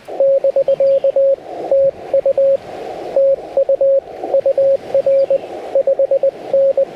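Morse code (CW) from a Yaesu FT-891 transceiver's speaker: a single steady note keyed in dots and dashes, with a narrow band of receiver hiss filling the gaps between characters.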